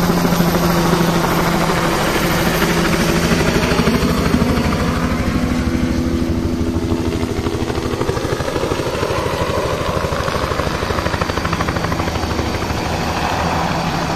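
A two-bladed light helicopter flying low overhead and then hovering to land, with a fast, steady rotor chop. A whine slides down in pitch and back up again around the middle.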